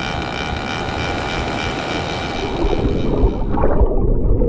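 Wind and breaking surf with a steady high whine over them. About three seconds in this gives way to the muffled, low rush of shallow surf heard underwater.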